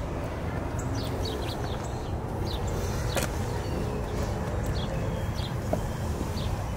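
Outdoor ambience: a steady low rumble with scattered short, high chirps of birds and a brief sharp click about three seconds in.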